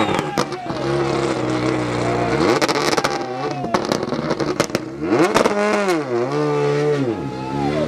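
Rally car engine revving hard, its pitch climbing and dropping again and again through gear changes and lifts, with several sharp cracks along the way.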